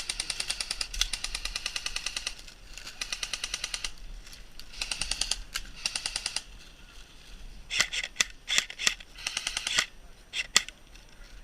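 KWA KM4 electric airsoft rifle firing on full auto in several long bursts of rapid, even clicks. Near the end come several separate louder sharp cracks.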